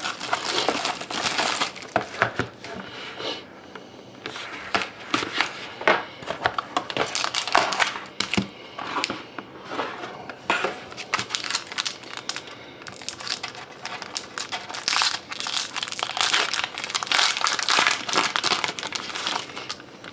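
Wrapping on a sealed hockey trading-card pack being torn open and crumpled by hand: a dense crinkling rustle full of sharp crackles, easing off briefly a few seconds in and again past the middle.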